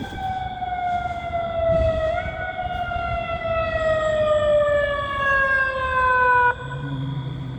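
Fire engine siren winding down, its pitch falling slowly over about six seconds with a brief lift about two seconds in, then cut off abruptly. A steady high-pitched fire alarm tone sounds behind it.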